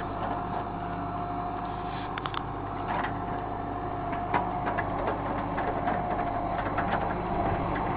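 John Deere 160C excavator's diesel engine running steadily, with a steady whine over it and a few light clanks, about two, three and four and a half seconds in.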